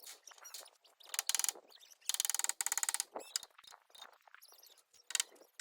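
Rapid mechanical clicking like a ratchet, in three short runs of a fraction of a second to about a second each.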